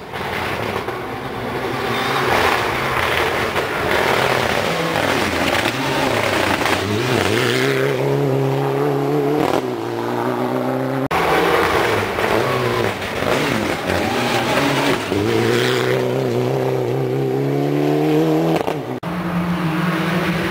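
Rally car engines at full throttle on a gravel stage, revving hard, the note climbing through the gears and dropping at each shift, over a hiss of tyres on gravel. The sound cuts off abruptly about halfway through and again near the end.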